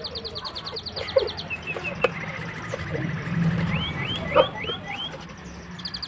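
Kitchen knife chopping soft cooked kenikir leaves on a wooden cutting board: a few sharp, irregularly spaced chops. Birds chirp in the background, with a rapid high trill and a run of five rising notes about four seconds in.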